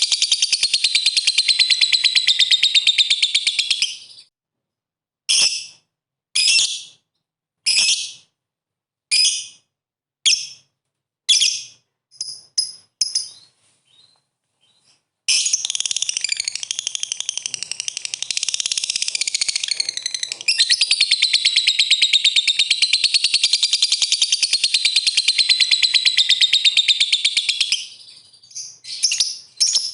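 Lovebird calling in its long, rapid chattering trill (ngekek). The trill breaks off after about four seconds into single sharp chirps roughly one a second, pauses briefly, then runs again for about twelve seconds before ending in a few short chirps.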